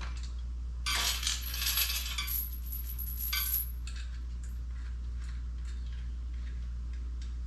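Small loose metal parts clinking and rattling together for about three seconds, starting about a second in, then a few scattered light clicks.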